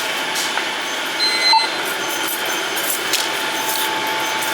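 Shop ambience at a checkout counter: steady background noise with scattered small clicks and clatter, and a short high electronic beep about a second in.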